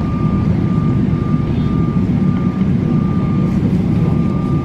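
Steady cabin rumble of a jet airliner taxiing after landing, with its engines at idle, and a thin, steady whine that comes and goes.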